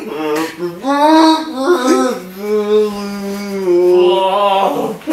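A man singing a line with his mouth stuffed with marshmallows, no clear words, moving through a few notes and then holding one long note before stopping near the end.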